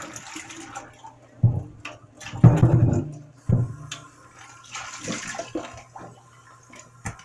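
Kitchen tap running into a stainless steel sink while sliced sweet potatoes are rinsed by hand in a plastic tub, water splashing and sloshing in the tub. Several louder splashes and knocks come and go, the loudest about two and a half seconds in.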